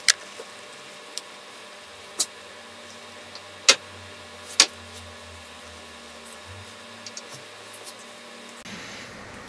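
Small fork seal parts (rings, bushings, a circlip) being set down on a workbench: a few sharp clicks and taps, four louder ones in the first five seconds, with fainter ticks after.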